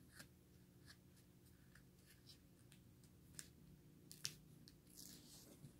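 Near silence with a few faint ticks and light scratches of fingers handling the release paper on a diamond painting canvas. The sharpest tick comes about four seconds in.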